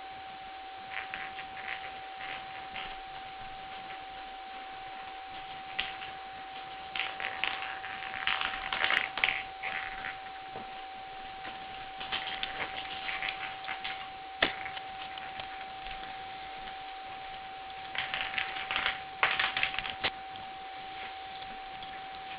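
Scattered clusters of light clicking and rustling, with one sharp click about halfway through, over a steady high-pitched whine and hiss.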